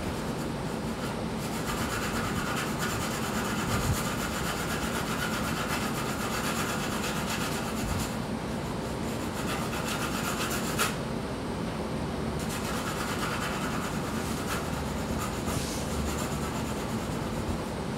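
Graphite pencil shading on textured watercolor paper: a steady scratchy rubbing in long strokes, with one short click about eleven seconds in.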